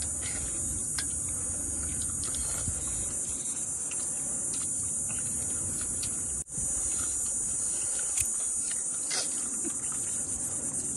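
Steady, high-pitched insect chorus, briefly cutting out for an instant about six and a half seconds in.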